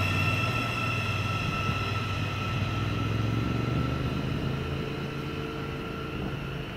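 Class 717 electric multiple unit moving away along the platform: a steady electric whine and a low hum that slowly fade as it goes.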